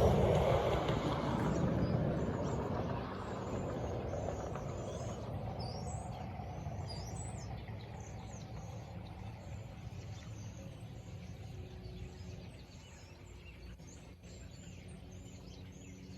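Many small birds chirping over the rumble of passing highway traffic. The traffic is loudest at first and fades away gradually, leaving the birdsong clearer.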